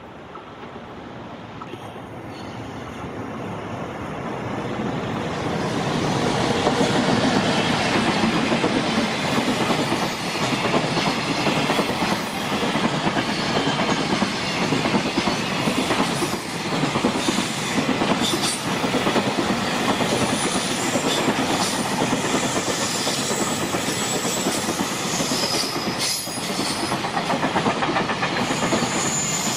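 A JR Freight container train behind an EF210 electric locomotive passing at speed, growing louder over the first six seconds as it comes close. The wagons then roll by with a steady loud rumble, wheel clatter over rail joints and a few high wheel squeaks near the end.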